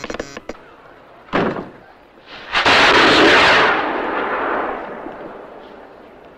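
Ship's distress rocket launched: a short burst, then about a second later a sudden loud rushing whoosh that tails off over the next two seconds.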